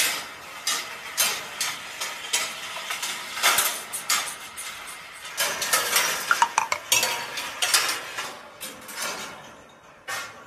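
Balls running through a steel-wire rolling-ball sculpture: continuous metallic clattering and rattling, with many sharp clicks and clinks as they roll along and drop between the wire tracks. A few short ringing tones come about six to seven seconds in, and the clatter dies down near the end.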